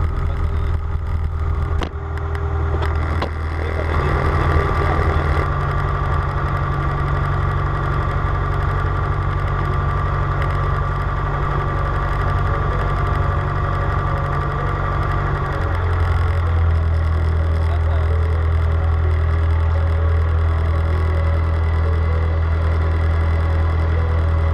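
Aircraft engines running steadily, their tone shifting about four seconds in and again about sixteen seconds in.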